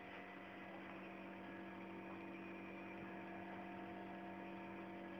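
Faint, steady hum with a low hiss behind it, unchanging throughout.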